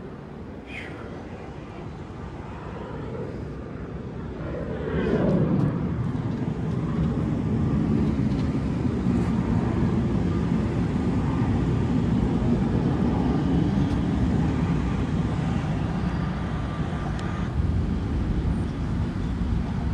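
Engine noise of an aerobatic airplane flying overhead. It swells about five seconds in, its pitch falling as it passes, then settles into a loud, steady rumble.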